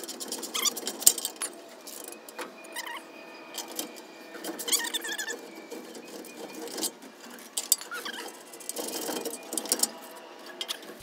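A rusted bumper bolt on a 1958 VW bus being worked loose with a hand wrench: irregular metal clicks and scraping, with short squeaks as the seized bolt turns.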